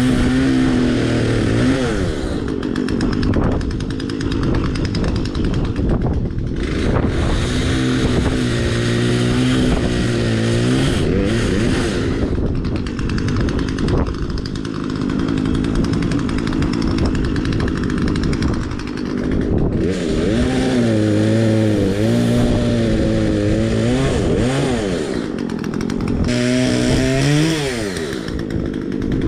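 Poulan Wild Thing two-stroke chainsaw running and cutting logs, its engine pitch repeatedly sagging as the chain bites and picking up again between cuts.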